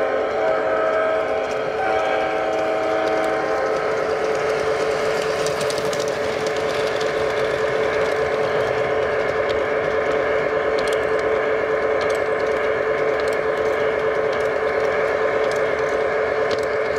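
LGB G-scale model train running along its track, its whistle sounding in blasts that stop about three and a half seconds in. After that the steady whine and rumble of the running train go on, with scattered sharp clicks.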